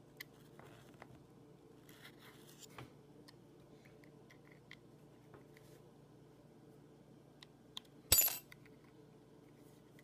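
A thin metal tool working at the Torx mounting screws on a laptop hard drive: faint scrapes and small ticks, then one sharp metallic clink about eight seconds in.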